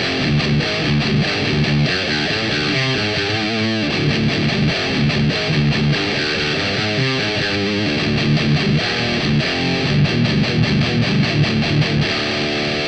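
Electric guitar played through the Audio Assault Bulldog amp-sim plugin: continuous distorted riffing with the amp's bass turned up, giving a heavy tone.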